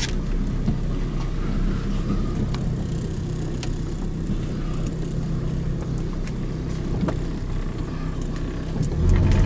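2003 Toyota Tacoma's engine running as the truck is driven slowly, heard from inside the cab, with a few light clicks; it grows louder near the end. The owner says the engine has a miss when pulling away.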